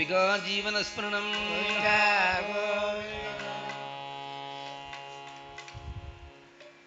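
Harmonium holding a steady drone while a man sings a bending, ornamented devotional phrase for about the first three seconds; then the voice stops and the harmonium drone alone carries on, fading.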